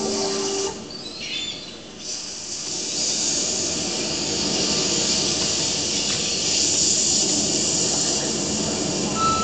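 A held musical note cuts off about a second in, then a steady, hissing, rushing noise swells up and carries on.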